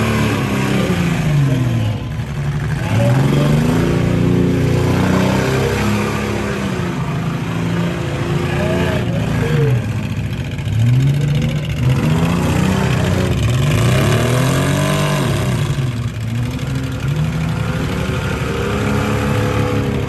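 Demolition derby vehicle engines revving hard, their pitch rising and falling over and over, with more than one engine going at once.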